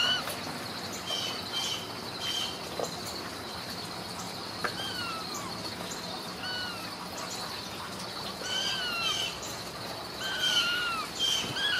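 Ragdoll kittens mewing: thin, high-pitched mews that fall in pitch, repeated every second or two. The mews are louder in the second half.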